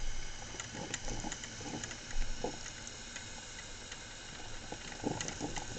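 Black & Decker thermal carafe drip coffee maker brewing, its heater pushing water through with irregular gurgles and sputtering pops over a steady hiss, a sign that it is heating and working.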